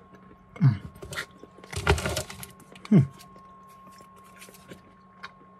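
A man's short, low voice sounds, each dropping in pitch, three in all while he eats chewy Airheads candy, with a brief noisy rustle about two seconds in.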